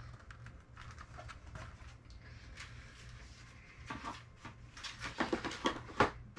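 Cardboard collector boxes being handled: soft rustling with light clicks, then a cluster of sharper taps and knocks about four seconds in, over a steady low hum.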